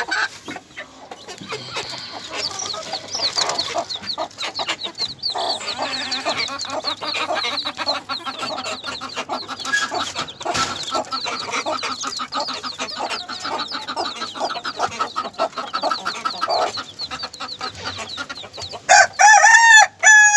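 Chicks peeping in a steady stream of short, high, falling cheeps, with a hen clucking lower beneath them. Near the end a much louder, drawn-out chicken call cuts in.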